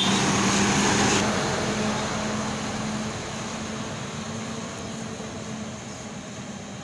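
Concrete mixer truck's diesel engine running as the truck drives away, a steady drone that fades as it moves off.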